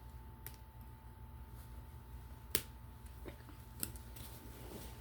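A few faint, sharp clicks from handling, the clearest about two and a half seconds in, over a low steady hum and a thin faint high tone.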